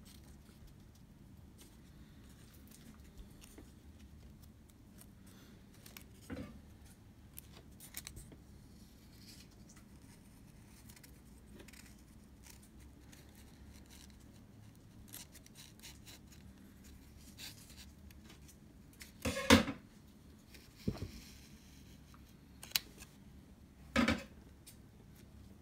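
Scattered clicks and taps of small tools and Leica shutter parts being handled at a workbench, a few seconds apart, the loudest a sharp clack about three-quarters of the way in.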